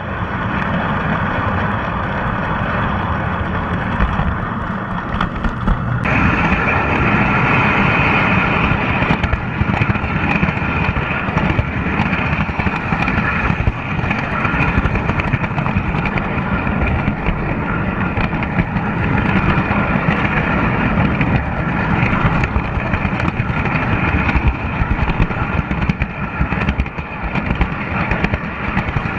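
Lionel toy train running on its track, heard close up from a camera riding on the train: a steady motor hum with the rumble and rattle of wheels on the rails.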